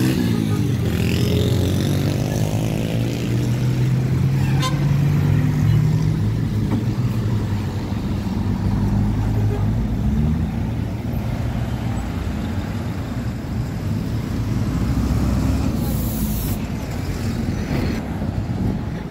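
Diesel engine of a city bus pulling away from a stop and accelerating, its note rising at first, amid street traffic. A brief hiss comes near the end.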